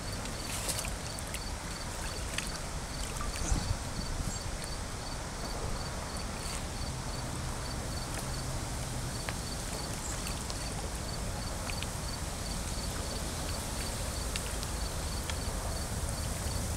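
Outdoor ambience of a steady low rumble and hiss, with a faint insect chirp repeating about twice a second and a few small clicks in the first seconds. The low rumble grows near the end as a distant diesel-hauled train approaches.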